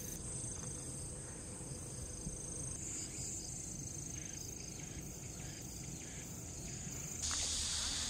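Steady high-pitched chirring of insects, which gets louder about seven seconds in.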